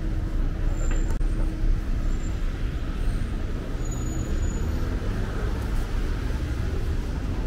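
Steady low rumble of motor traffic on a city street.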